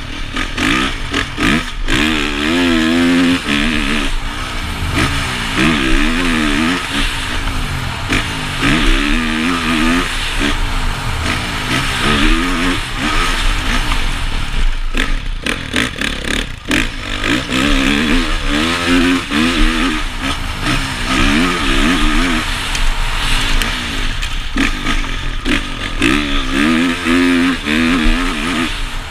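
Honda CRF450 motocross bike's single-cylinder four-stroke engine revving hard and backing off again and again as it is ridden flat out around a dirt track. Its pitch climbs and drops with each burst of throttle, heard from the rider's helmet camera.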